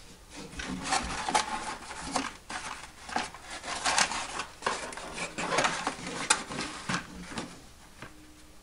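Hands handling and shifting a foam model airplane on a workbench: irregular rubbing, scraping and light knocks of foam and plastic parts against the bench.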